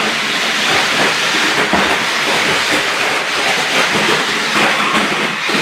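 A 1/8 scale remote-control Jeep Wrangler driving, its electric motor and gears making a steady loud hiss, with a few scattered knocks.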